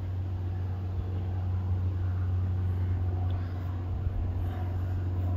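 Steady low hum of a crowd of honeybees on orientation flights in front of their hives.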